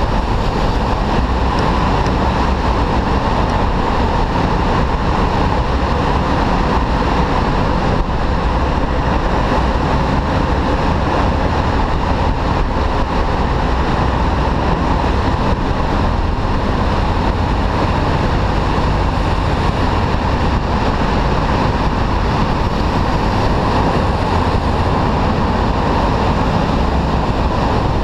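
Steady wind and road noise from riding a Honda Lead scooter through a road tunnel, with the scooter's engine and the surrounding car traffic running underneath.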